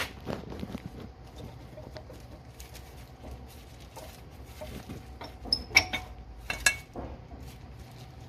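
Metal tools and parts being handled during car repair work: scattered light knocks and taps, with two sharp metallic clinks that ring briefly a little before the last two seconds.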